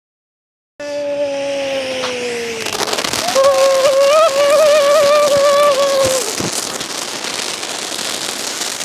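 Novelty firework going off: a whistle that falls in pitch, then a wavering whistle of about three seconds, over steady hissing and crackling of burning sparks.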